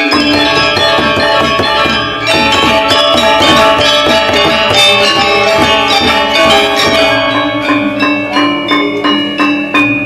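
Balinese gamelan ensemble playing a tabuh kreasi: struck bronze metallophones and gongs ringing in dense interlocking patterns over a held low tone. A little after halfway the playing turns into sharper, evenly spaced strokes.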